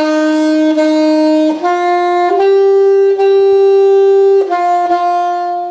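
Alto saxophone playing a slow beginner exercise phrase, C C D E E D D, each note held and separated by a light tongue. The notes step up twice, hold on the highest, then step back down.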